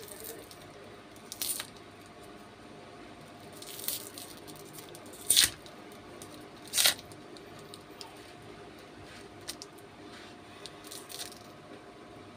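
Plastic lollipop wrapper crinkling and tearing as it is pulled off by hand, in a few short crackling bursts, the loudest about five and a half and seven seconds in.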